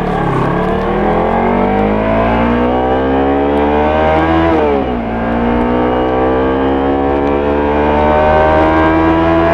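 Kawasaki Ninja 300's parallel-twin engine and exhaust accelerating under load. The engine note climbs steadily, drops sharply at an upshift a little under five seconds in, then climbs again more slowly in the next gear.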